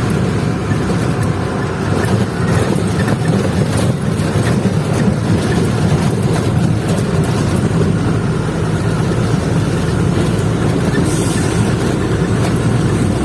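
Truck engine running steadily while driving, with road rumble, heard from inside the cab.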